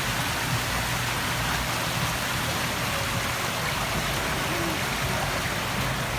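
Water rushing steadily down the boat-race channel.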